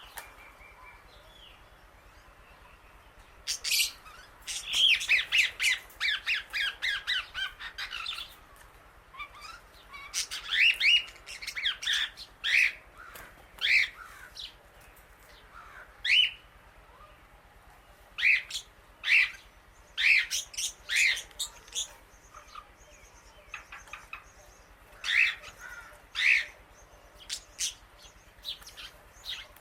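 Indian ringneck parrot squawking in sharp, loud calls. A rapid run comes about four seconds in and lasts several seconds, then another cluster, then single calls a second or more apart.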